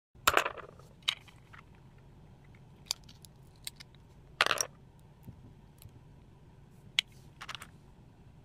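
Hard kitchen objects being handled, giving a handful of sharp clinks and clatters, the loudest near the start and about four and a half seconds in, over a low steady hum.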